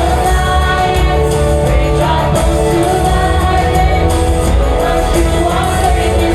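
Live gospel praise music: a worship band playing with a sustained held vocal or choir line over a full, steady low end.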